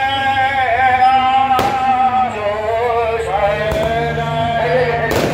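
Male voice singing a devotional song over music, with two sharp firecracker bangs: one about one and a half seconds in and another near the end.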